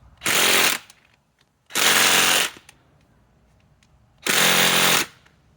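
Cordless impact wrench hammering in three short bursts, each under a second, as it tries to back out a stuck lag screw.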